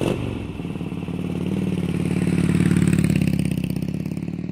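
Motorcycle engine running with a fast pulsing exhaust beat, building in level and then easing off over a few seconds.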